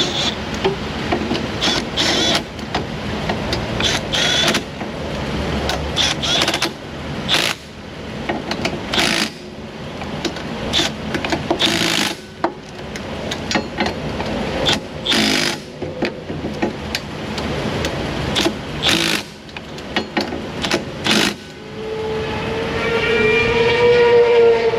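Traffic noise with irregular short knocks and clatter, then near the end a sport motorcycle speeding past at high revs, its engine note dropping as it goes by.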